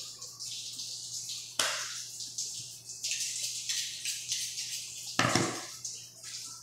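Butcher's knife cutting meat from a hanging beef carcass: a run of short scraping strokes, with a sharp knock about a second and a half in and a heavier thump a little after five seconds.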